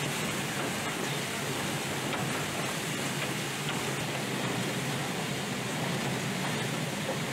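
Steady mechanical running noise of an automated syringe production line, with a low hum and a few faint ticks.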